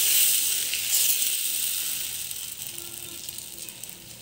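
Dosa batter sizzling on a hot tawa as a ladle spreads it round in circles. The hiss is loud at first and dies away steadily over a few seconds.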